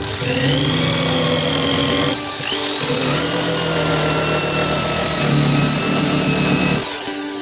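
An electric power tool running in two runs with a steady high whine. The first run stops about two seconds in, the second starts half a second later, and it cuts off near the end.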